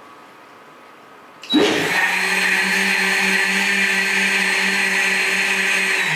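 JTC countertop blender switched on about a second and a half in, spinning up quickly and then running at a steady high speed as it purées corn kernels with water into corn milk. It starts to wind down at the very end.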